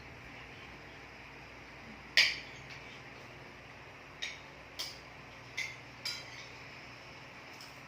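Cutlery clinking against plates during a silent meal: about six short, separate clinks spread over several seconds, the first, about two seconds in, the loudest.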